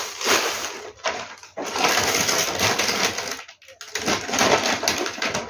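Plastic snack wrappers and bags crinkling and crackling as they are handled, in three stretches with short pauses about a second and a half in and past three and a half seconds.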